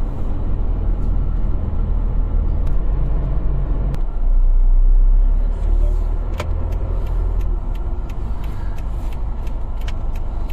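Car driving along a road, heard from inside the cabin: a steady low rumble of engine and road noise. It swells louder for a second or so about four seconds in, and light scattered clicks run through the second half.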